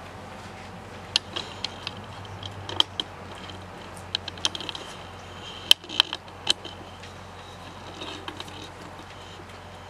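Metal knife and fork clinking and scraping against a plate as pancakes are cut and eaten, with about a dozen sharp clinks over the first seven seconds or so.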